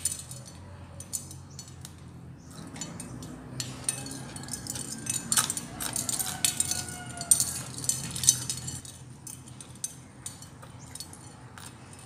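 Shell wind chime (shell mobile) clattering and clinking in the wind, a busy run of light taps that grows denser and louder in the middle.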